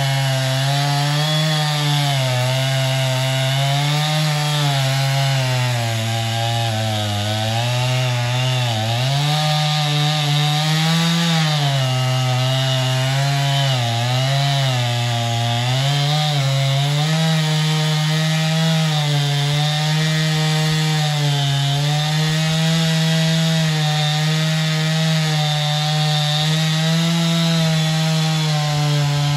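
Two-stroke chainsaw running at full throttle, cutting into a standing tree trunk. The engine pitch sags and recovers again and again as the chain bites into the wood.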